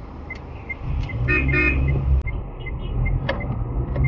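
A car horn sounds two short blasts just over a second in, over the low rumble of road traffic. Faint, even ticking runs underneath at about two or three ticks a second.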